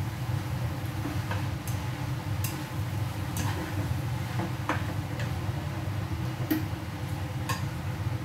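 Irregular light clicks and taps, roughly one a second and unevenly spaced, over a steady low hum.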